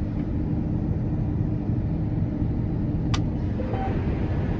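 John Deere S790 combine running steadily while threshing, a low even drone, with a single sharp click about three seconds in.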